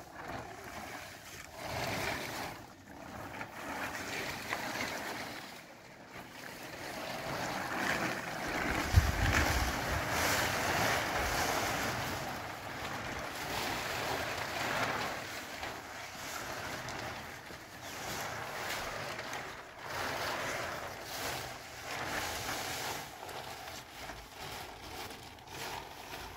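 Large plastic sheet rustling in swells as it is lifted, dragged and rolled up, with wind buffeting the microphone.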